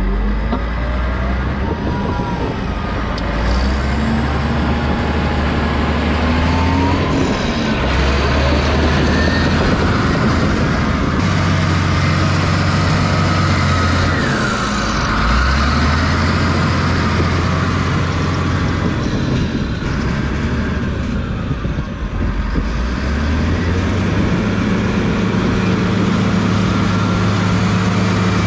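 Cat D6H Series II crawler dozer's diesel engine running under load, its pitch rising and falling every few seconds as the blade pushes dirt. Wavering higher squeals come and go over the engine's steady noise.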